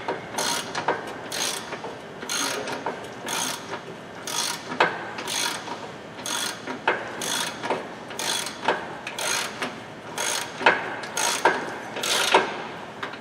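Hand ratchet clicking in steady back-and-forth strokes, about two a second, running a nut down on a new lower control arm to snug it before final torque.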